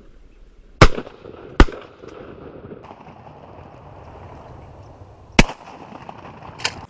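Four shotgun shots: two close together about a second in, then two more, the last one weaker, around five and a half and near seven seconds, each a sharp crack with a short trailing rumble.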